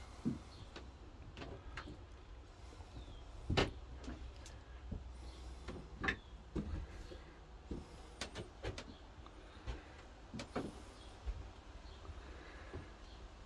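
Scattered soft knocks and creaks from someone moving about on a wooden plank floor, over a steady low rumble; the loudest knocks come a few seconds in and again about six seconds in.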